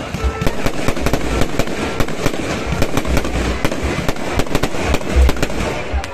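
New Year fireworks display: a dense, rapid crackle of bangs and pops from bursting shells, with repeated deep booms.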